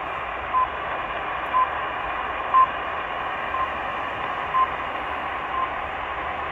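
RWM Moscow time signal received on a Sangean ATS-909X2 shortwave radio in upper sideband: short beeping time pips, one each second, over a steady hiss of shortwave static.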